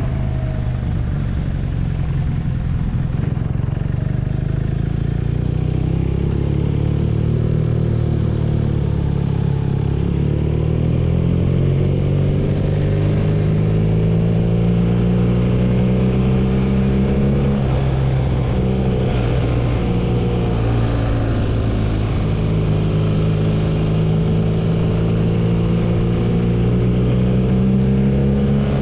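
BMW R nineT's air/oil-cooled boxer twin engine running while the motorcycle is ridden. The engine note climbs slowly, drops briefly about eighteen seconds in, then holds and climbs again near the end.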